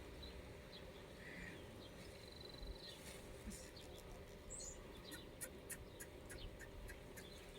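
Faint outdoor ambience with a few short bird chirps and whistles. A run of light clicks comes in the second half.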